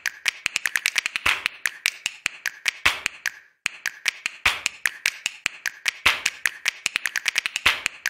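A rapid run of sharp clicks and taps, many a second in an uneven rhythm, breaking off briefly about three and a half seconds in and then resuming.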